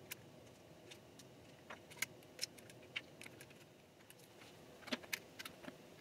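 Small, sharp clicks and taps of hands handling the components of a 2013 Mac Pro, about ten scattered clicks over a faint hiss, the loudest about two seconds in and again about five seconds in.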